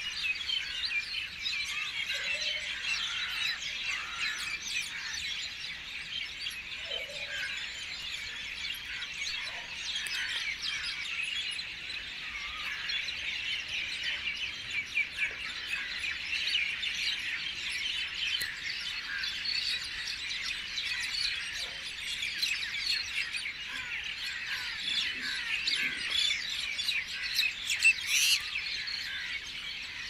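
Many songbirds singing together: a dense, steady chorus of overlapping chirps, with one louder, sharper call near the end.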